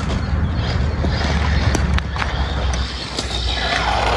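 1:18-scale four-wheel-drive electric RC buggy (PXTOYS 9306E) driving over rough asphalt: a steady motor and tyre noise over a low rumble, with a few sharp clicks.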